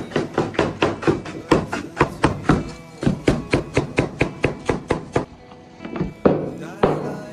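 A cleaver chopping chicken on a wooden cutting board in quick strikes, about four or five a second, that break off about five seconds in and resume more sparsely, over background music.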